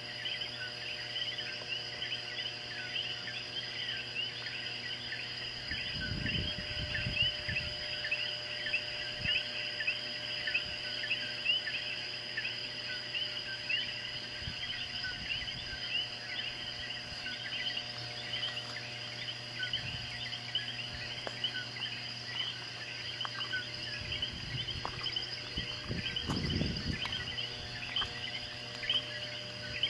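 Dense night chorus of coquí frogs, many short two-note "co-QUI" calls rising in pitch and overlapping without a break, over a steady high-pitched tone. Two brief low rumbles come through, about six seconds in and again about twenty-six seconds in.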